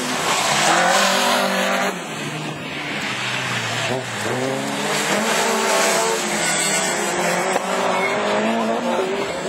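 A pack of small rallycross hatchback race cars running hard in close company, their engines revving and sliding up and down in pitch as they accelerate and lift through the corners.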